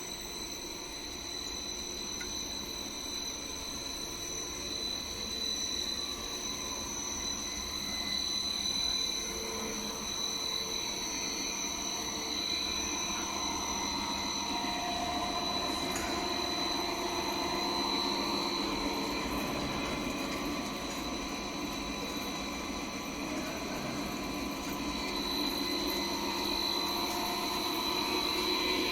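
Plastic bi-oriented net production line running: steady machine noise with constant high whines, growing slowly louder.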